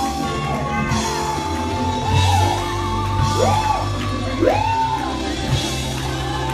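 Loud live gospel praise music from a church band, with steady bass notes under a held keyboard line, and voices shouting and whooping over it in long cries that swoop up and back down.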